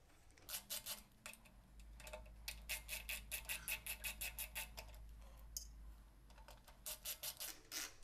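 Ratchet screwdriver clicking in quick runs, about six clicks a second, as it backs out the two screws holding the drill press's switch panel.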